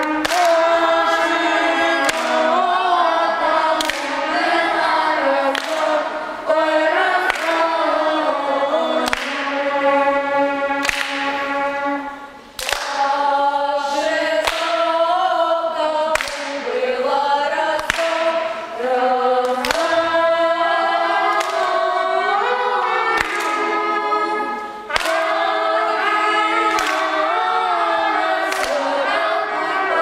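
A children's folk ensemble singing a Russian folk song loudly in chorus, with sharp percussive hits every second or two.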